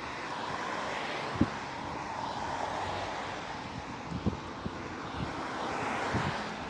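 Road traffic on the adjacent street: a steady rush of tyre and engine noise that swells through the middle and eases near the end. A few short low thumps come through it.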